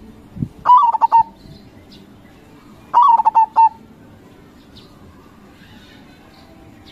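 Zebra dove (perkutut) cooing: two short song phrases about two seconds apart, each a quick run of clipped, ringing notes. A brief low thump comes just before the first phrase, and small birds chirp faintly in the background.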